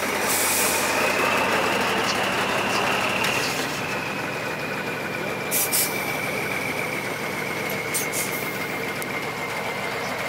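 Diesel engine of a 6x6 trials truck running steadily under load as the truck crawls through a mud pit, with a faint high whine that rises a little and then eases back. A few short sharp clicks come about halfway through and again near the end.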